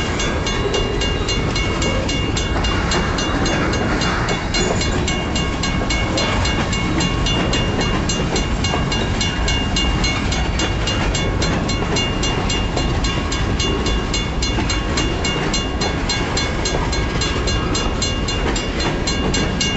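A BNSF grain train's freight cars rolling past, with wheels clacking and rumbling on the rails. A grade-crossing bell rings on and on in an even rhythm over the top.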